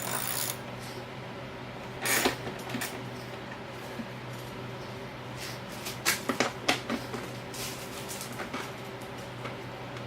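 Scattered metal knocks and clanks as a dirt bike's stock exhaust silencer is worked loose and pulled off, with a cluster of knocks about six seconds in, over a steady low hum.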